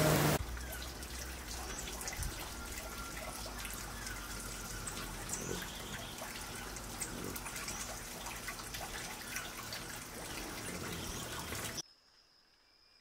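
Forest ambience: a steady background hiss with scattered faint high chirps and drip-like ticks. It cuts off near the end.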